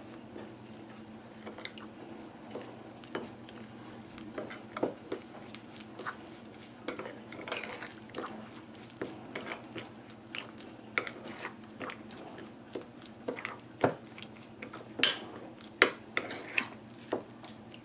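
Metal spoon stirring and scraping a thick, wet curry paste in a bowl, with irregular clinks and taps of spoon on bowl.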